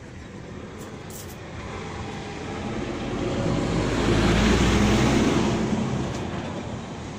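A heavy road vehicle passing close by: a low engine hum and tyre noise that swell to a peak about four to five seconds in, then fade away.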